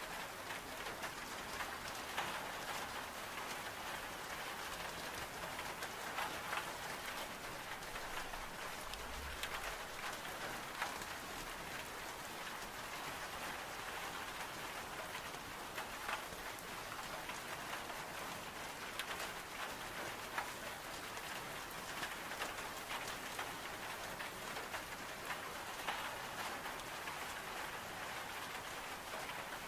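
Steady rain pattering on window glass, with scattered small crackles from a wood-burning stove mixed in.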